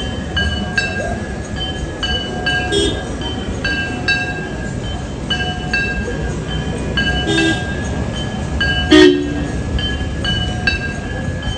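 Temple bells ringing over and over in an uneven rhythm, about one or two strokes a second, each stroke leaving a high metallic ring. A steady low background noise lies beneath. A single louder, sharper strike comes about nine seconds in.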